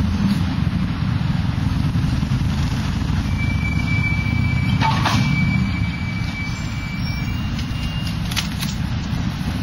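Trams and road traffic in a city street: a steady low rumble throughout, a thin high squeal held for about four seconds from about three seconds in, and sharp knocks around the middle and again near the end.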